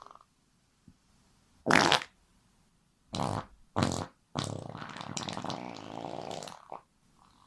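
A series of farts: a short loud one, two more short ones, then a long fluttering fart of about two seconds.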